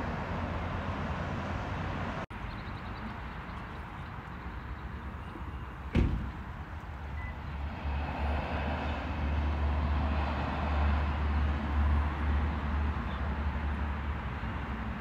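Steady outdoor background noise with a low rumble that grows louder in the second half, and one sharp knock about six seconds in.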